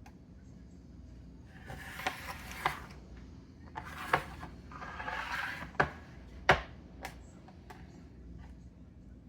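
A knife scraping and cutting on a cutting board as trout are filleted, in short bursts, with several sharp knocks of the blade or fish on the board.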